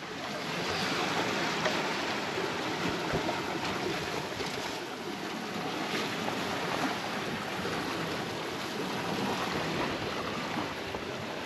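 Steady rush of wind and sea around a sailboat under way in open ocean.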